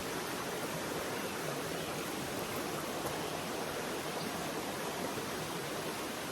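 Steady rush of a trout stream's running water.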